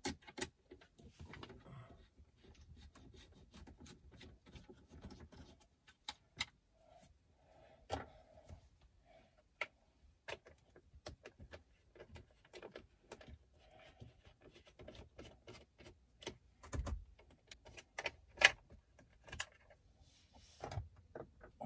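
Scattered clicks and light knocks of plastic BMW F30 centre-console trim being pried and handled with a screwdriver, with one sharper snap about eighteen seconds in.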